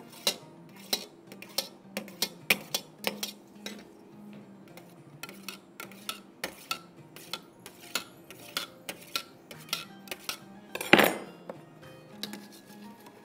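Table knife repeatedly clinking and scraping against a stainless steel bowl as it cuts up set red jelly, about two knocks a second, with one louder, longer clatter near the end.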